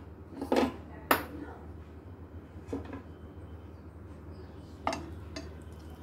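Kitchenware being handled: several sharp knocks and clinks of a frying pan and dishes, the loudest about a second in, over a low steady hum.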